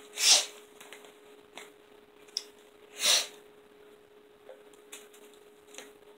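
Two short, loud breaths through the nose, about three seconds apart, with a few small clicks as a plastic bottle and syringe are handled.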